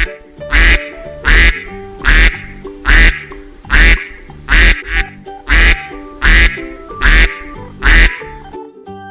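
A duck quacking about ten times in an even rhythm, a little over one quack a second, loud over background keyboard music.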